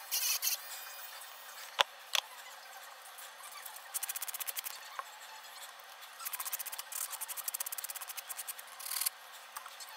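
A nail file rubbing back and forth over a hardened acrylic nail in quick, short, scratchy strokes, several a second, in a short run about four seconds in and a longer one from about six to nine seconds in. A single sharp click comes near two seconds in.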